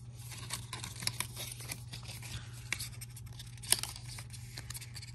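Small handling noises: faint rustles and scattered light clicks as a braided MagSafe charging cable is picked up and moved, with one sharper click a little before the end. A steady low hum runs underneath.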